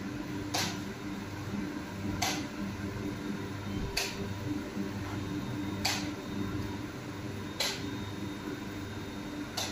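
Steady low hum of a fan or machinery, with a short sharp tick repeating about every second and three-quarters, six times.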